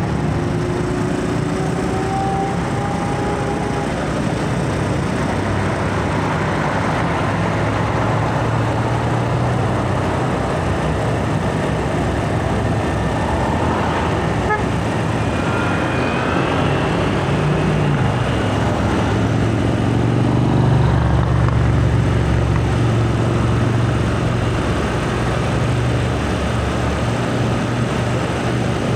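Road traffic passing close by: the diesel engines of fuel tanker trucks running as they go past, mixed with motorcycles. The low engine rumble swells about two-thirds of the way through.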